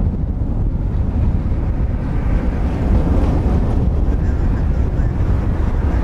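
Boeing 777-300ER's twin GE90 turbofans at takeoff thrust during the takeoff roll, a loud continuous rumble that brightens about two seconds in. Strong wind buffets the microphone throughout.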